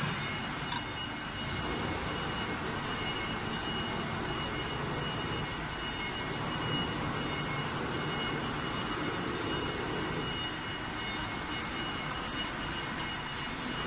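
The 9.0 kW air-cooled spindle of a wood CNC router running at speed: a steady high whine over an even rushing hiss.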